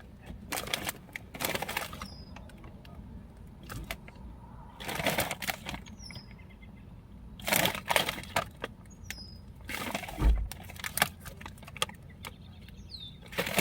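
Crinkly chip bag rustling in several separate bursts as it is opened and handled. A bird gives a short, high chirp four times in between.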